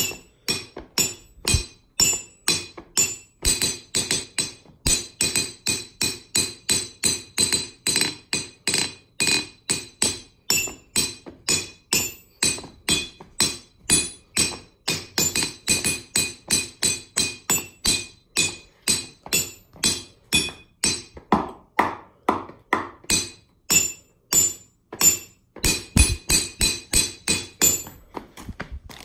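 Hammer beating a rhythm on a 66-pound anvil, about three blows a second. Each strike rings with a bright, high metallic tone. For a stretch about three-quarters of the way through the blows ring lower in pitch, and one heavier blow lands near the end.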